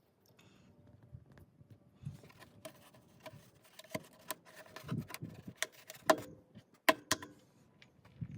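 Plastic push-clips and trim pieces being pressed and snapped into place in a car's engine bay: a scattering of sharp clicks and taps, the loudest a few in the second half.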